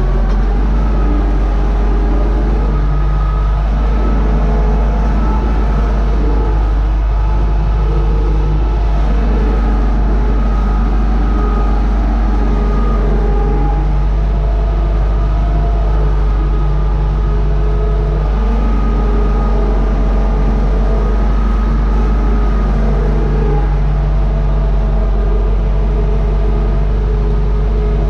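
Universal 650 tractor's four-cylinder diesel engine running steadily under load while pulling a three-furrow plough, heard from inside the cab as a constant low drone.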